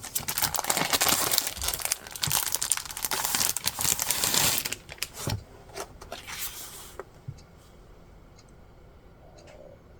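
Parcel packaging being unwrapped by hand: dense crinkling and tearing for about four and a half seconds, then a few scattered crackles that stop about seven seconds in, leaving only faint ticks.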